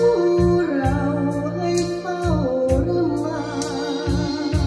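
Thai popular song played from a vinyl record through a hi-fi system: a melody line that glides and wavers over a steady pulsing bass beat.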